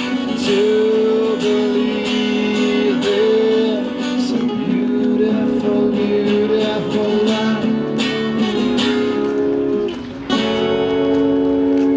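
Acoustic guitar strumming chords, with one last chord strummed about ten seconds in and left to ring.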